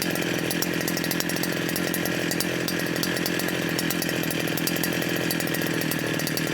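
Stihl power tool fitted with a chainsaw-toothed circular saw blade, running at a steady speed with a rapid, even pulsing.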